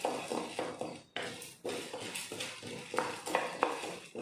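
A spatula stirring chana dal as it roasts in a pan: repeated scraping strokes with the dry lentils rattling and sharp clicks of the spatula against the pan, with a short pause about a second in.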